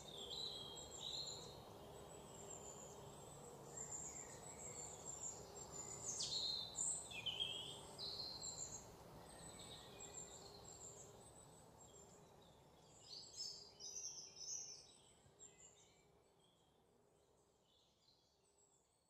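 Birds chirping and calling in short, quick, high notes over a faint steady outdoor background noise, the whole sound fading away over the last few seconds.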